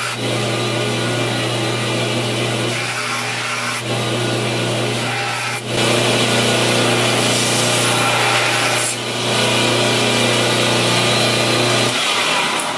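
Homemade 2x72 belt grinder running, with the hiss of a steel knife tip pressed against the wet belt in long passes to reshape a broken tip. The steel comes off the belt briefly a few times, and the motor hum stops near the end.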